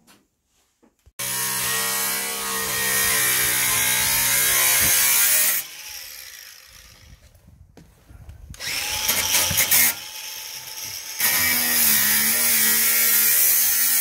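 Handheld angle grinder with a sanding disc running against wood: a steady motor tone with a rough grinding hiss over it, in three runs. The first lasts about four seconds, a shorter, rougher burst comes near the middle, and a third steady run starts a couple of seconds later.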